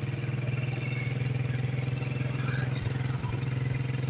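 Motorcycle engine running steadily while the bike is under way, heard from the seat.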